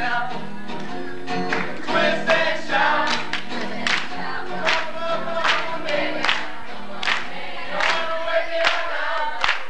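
Voices singing a song to acoustic guitar, with sharp claps on the beat a little more than once a second.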